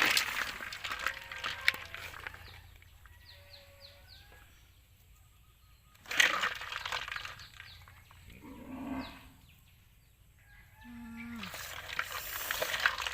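Scattered animal calls, farm animals and small birds, with short chirps and a couple of brief low calls, between bursts of rustling noise.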